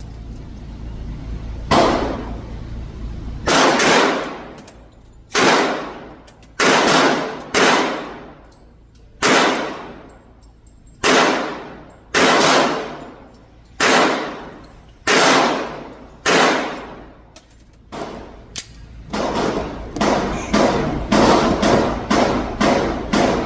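Glock 30 pistol firing .45 ACP, about twenty single shots, each followed by a ringing echo that dies away over about a second. The shots come every one to two seconds at first and quicken to about two a second near the end.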